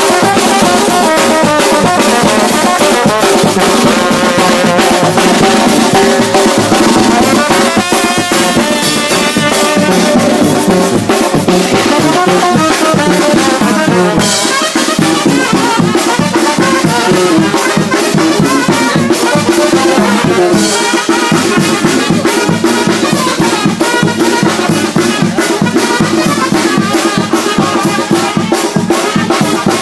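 Mexican brass band (banda) playing: trumpets and trombones over drums, loud and without a break.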